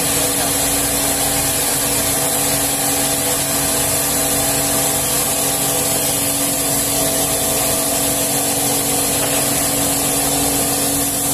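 A stainless-steel food-slab cutting machine running: a steady mechanical hum with a constant whine over an even hiss, unbroken throughout.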